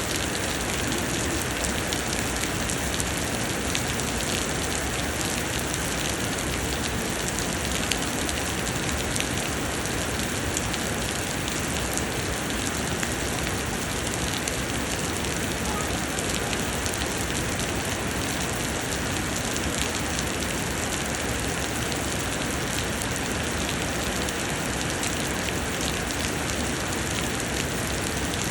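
Heavy summer rain pouring steadily, a dense even hiss with many fine drop taps.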